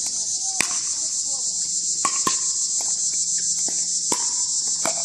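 A steady, high-pitched chorus of insects in the trees, with five sharp pops of pickleball paddles striking the plastic ball during a rally.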